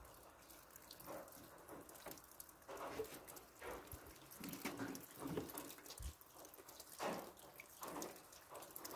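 Water dripping off the edge of a corrugated slate roof in rain and wet snow: faint, irregular drips and splats, a few of them louder.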